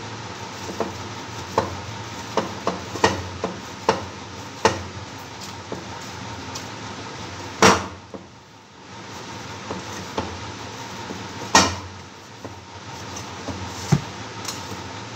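Wheat-flour dough being kneaded by hand in a steel bowl: irregular knocks and thuds as the dough is pressed and the bowl shifts, with two louder knocks about halfway through and again a few seconds later, over a steady background noise.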